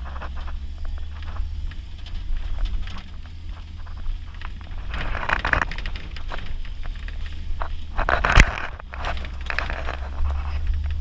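Four-wheel-drive vehicle on mud tires driving a rutted dirt trail, heard from inside the cab: a steady low engine and drivetrain rumble, with crackling, scraping bursts about five seconds in and a sharp knock just past eight seconds.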